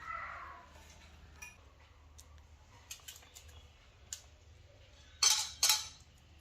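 Kitchen utensils and dishes clinking and clattering: a few light clicks spread through, then two loud, short clatters close together near the end.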